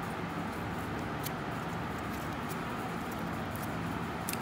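Steady background hum with a few faint light ticks, likely from the small cardboard pieces being handled.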